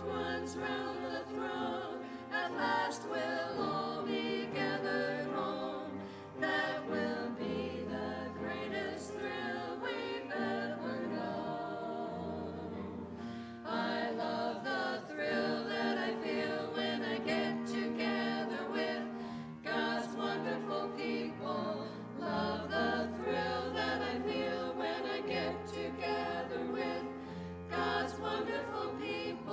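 A small women's choir singing a sacred song together.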